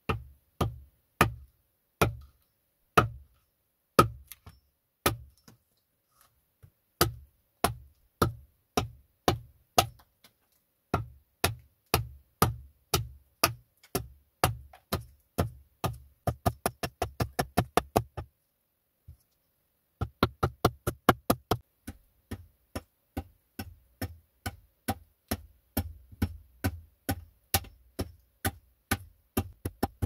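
Small hatchet chopping into a log on a chopping block, hewing it to shape: sharp strokes about two a second, a quicker run of lighter taps a little past halfway, a short pause, then steady chopping again.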